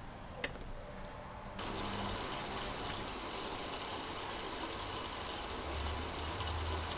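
Privileg 370 S washing machine taking in water: a click, then about a second and a half in water suddenly starts rushing in and keeps running steadily. A low hum joins in near the end.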